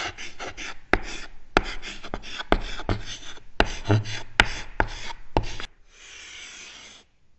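Pen-on-paper writing sound effect: quick scratchy strokes punctuated by sharp taps, then one longer, steadier scratch about six seconds in as an underline is drawn.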